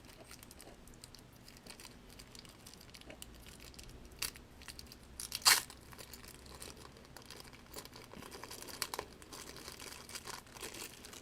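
Plastic packaging crinkling and tearing as a keychain figure is unwrapped, with scattered clicks and a loud sharp snap about five and a half seconds in.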